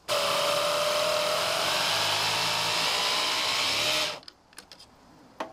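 A 775 DC motor driving a 3D-printed external gear pump runs with a steady whine for about four seconds, then cuts off suddenly.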